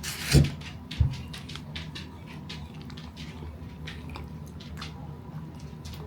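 A person chewing a mouthful of burrito wrap: two louder knocks in the first second, then many small, irregular mouth clicks.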